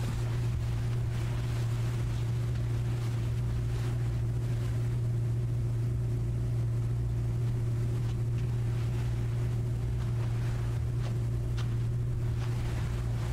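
Steady low electrical hum of fluorescent lights, an unbroken drone with a faint buzz above it, and a few faint ticks near the end.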